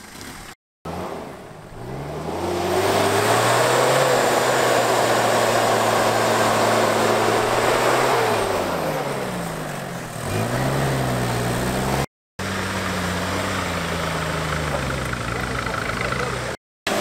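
Off-road 4x4 engine revving hard under load. Its pitch climbs and holds high for several seconds with a rush of noise, falls away, then picks up again and holds. The sound cuts out briefly three times.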